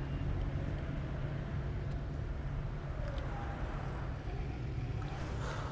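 Steady low rumble of a Citroën minivan taxi driving in city traffic, heard from inside the cabin, with a brief rush of noise about five seconds in.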